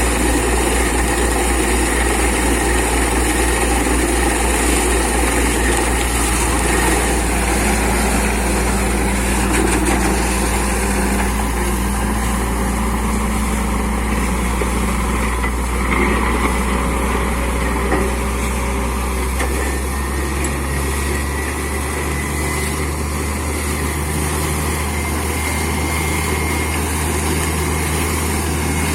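Borewell drilling rig and its air compressor running steadily, with a loud mechanical drone. The low hum shifts in pitch about two-thirds of the way through.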